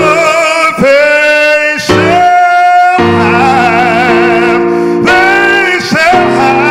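A solo voice singing a slow gospel song, holding long notes with vibrato, over sustained keyboard chords.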